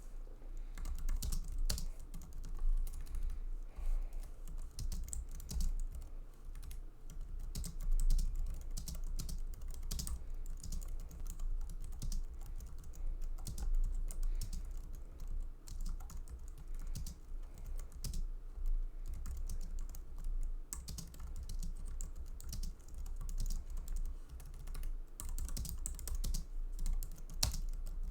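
Typing on an Apple full-size keyboard: a continuous, irregular patter of key clicks.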